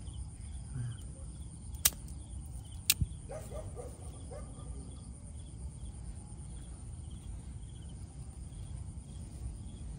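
Crickets and other night insects chirping steadily, a fast pulsing trill over a thin high whine. Two sharp clicks about a second apart, around two and three seconds in, stand out above it as the loudest sounds.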